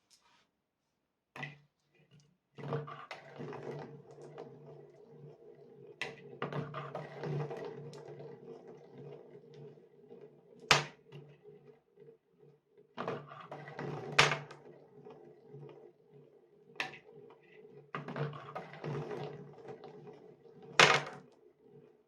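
Glass marbles rolling along a marble run, a rumbling roll that comes in several runs, broken by about six sharp clacks as marbles strike or drop.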